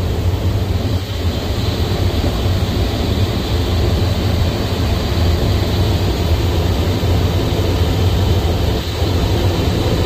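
Staircase pressurization fan (Rosenberg fan on a Yaskawa E1000 variable frequency drive) running steadily with a loud, low drone and rushing air. It is running in fire-alarm mode, with its speed held by the staircase pressure sensors.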